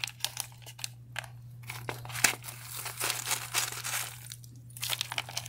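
Chunks of bark orchid substrate crunching and clicking in a plastic pot as a hand presses and shifts them around a keiki being potted: an irregular run of small clicks and scrapes, the sharpest about two seconds in.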